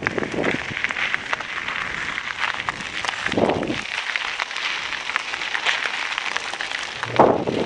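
Mountain bike riding over a rough dirt and gravel trail: tyres crunching and the bike rattling, with many small clicks and knocks, and a couple of brief louder swells.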